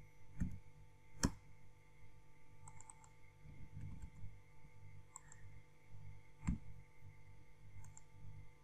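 Scattered clicks of a computer keyboard and mouse as numbers are typed into spreadsheet cells, the sharpest about a second in and again near the end, with lighter ticks between. A low steady hum runs underneath.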